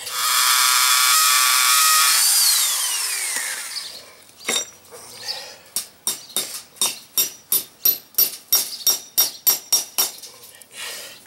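Power drill boring a 1/8-inch hole into the concrete wall through the metal lath, its whine falling away as it stops about three seconds in. Then a hammer taps a steel nail with a washer into the hole: a run of ringing strikes, about three a second.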